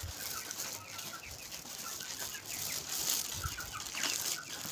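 Young chickens clucking, a scatter of short, soft calls in small runs.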